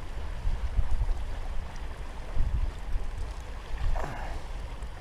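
Wind buffeting the microphone in uneven gusts, a low rumble over the steady rush of river water. A brief noise stands out about four seconds in.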